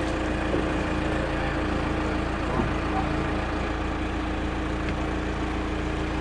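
An engine running steadily, a constant low hum, with a couple of faint knocks.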